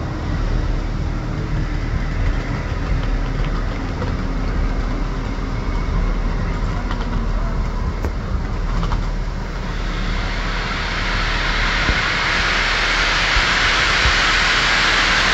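Steam locomotive 3801 standing at the platform with a low rumble, then from about ten seconds in a loud hiss of steam venting from the front of the engine, growing steadily louder.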